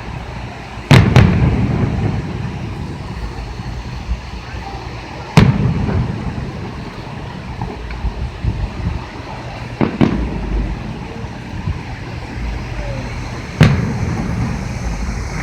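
Fireworks exploding: four sharp bangs a few seconds apart, the first a quick double, each followed by a low rolling echo, with a few smaller pops between them.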